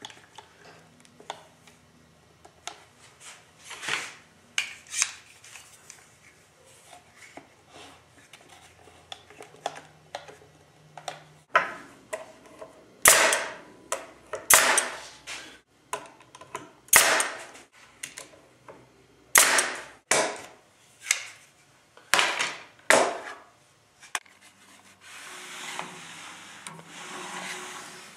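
Hand work on wood: light clicks and knocks, then a run of sharp scraping strokes about a second apart, giving way near the end to steadier rubbing like sanding.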